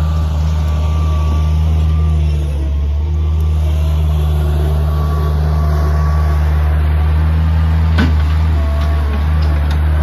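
Bobcat 743 skid steer engine running steadily under work as the machine drives and clears ground. There is one sharp knock about eight seconds in.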